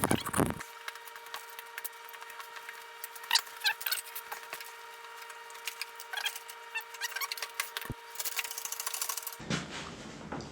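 Handling noise from a wooden crate and its contents: scattered scrapes, knocks and rubbing of wood, with a dull thump about eight seconds in and a longer stretch of scraping just after. A faint steady two-tone hum sits underneath.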